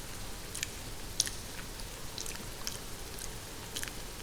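Close-miked wet mouth sounds of chewing on a lock of hair: scattered sharp little clicks and smacks, about three a second. Under them a steady hiss of rain falling on a greenhouse roof.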